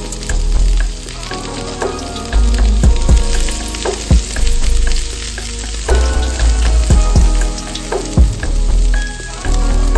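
Chopped bok choy stems sizzling in hot oil in a nonstick frying pan, stirred and turned with a plastic spatula.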